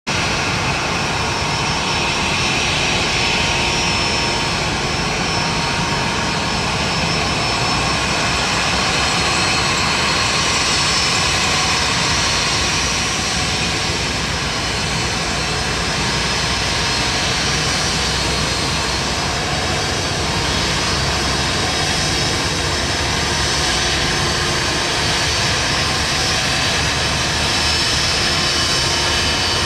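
Turbofan engines of a Citilink Airbus A330neo running at low taxi power: a steady jet rush with a faint whine that neither rises nor falls.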